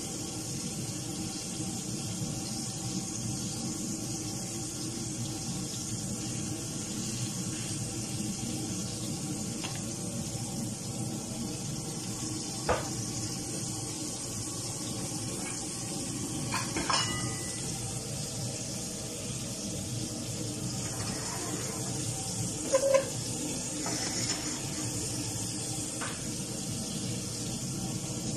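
Pieces of octopus sizzling steadily in hot oil in a frying pan, with a few sharp clicks of a utensil against the pan, the loudest near the end.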